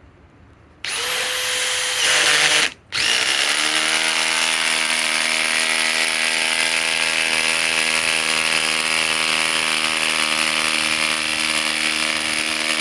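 DeWalt DCF870 hydraulic impact driver on a cold 5 Ah PowerStack battery, driving a large fastener. It starts about a second in, stops briefly near three seconds, then runs steadily for about ten seconds with a smooth hum rather than hammering blows. Its pitch drops and settles lower as it takes the load.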